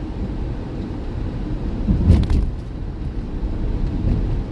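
Steady low rumble of a car heard from inside the cabin, with one brief sharp knock about two seconds in.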